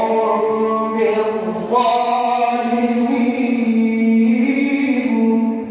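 A male reciter chanting the Quran in the melodic tajweed style, holding long, ornamented notes that glide between pitches. The phrase fades away near the end.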